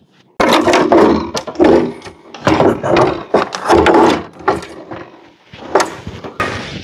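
Hoymiles combiner box enclosure being handled and pushed into place on a wall: a run of irregular knocks, bumps and scrapes with short pauses between them.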